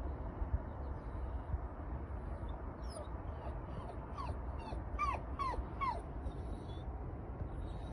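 Steady low rumble of wind on the microphone, and in the middle a distant animal gives a run of short calls, each falling in pitch, about two a second.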